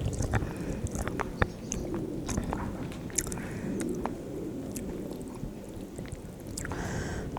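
Close-up chewing of spicy mixed noodles with kimchi, with scattered wet mouth clicks and smacks.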